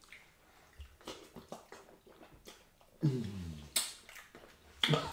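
Close-miked eating sounds of fufu and okra soup eaten by hand: soft mouth clicks and smacks, then a short vocal sound falling in pitch about three seconds in and a sharp click just before four seconds.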